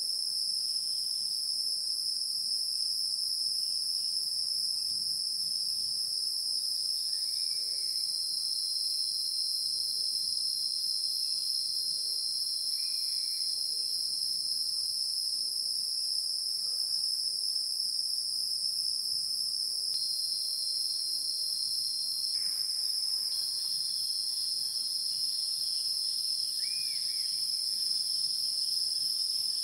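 A steady, high-pitched insect chorus with an unbroken shrill drone and a faint fast pulsing. A few faint short chirps sound over it now and then.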